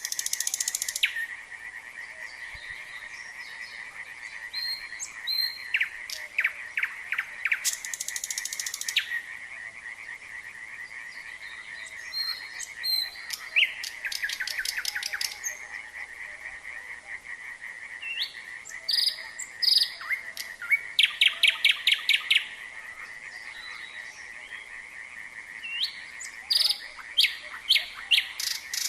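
A nightingale sings in separate phrases of buzzy rattles, runs of rapid repeated notes and high whistles. Behind it runs an unbroken chorus of frogs calling in fast pulsing trills.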